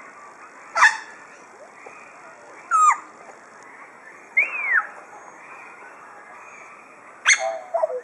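African grey parrot calling: four separate whistles and squawks. Sharp falling calls come about a second in and again near three seconds, an arched whistle that rises and falls comes midway, and a sharp call with a few lower notes after it comes near the end.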